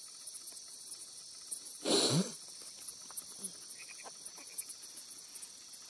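Night insect chorus of crickets and other insects: a steady high-pitched trill with rapid pulsing. A single short, louder noisy sound cuts in about two seconds in.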